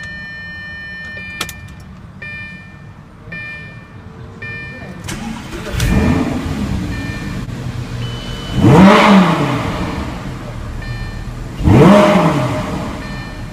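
Lamborghini Gallardo LP 550-2 Balboni: dashboard warning chimes beep at ignition, then the 5.2-litre V10 cranks and fires about six seconds in, settling to idle. It is blipped twice, each rev rising and falling back in about a second.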